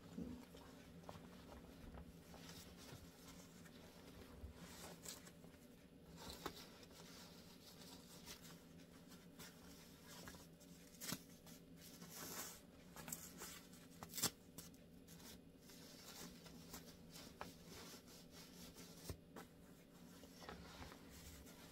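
Faint rustling and crinkling of a disposable nappy being handled and fitted on a doll, with scattered light clicks and a few louder rustles about halfway through, over a faint steady low hum of room tone.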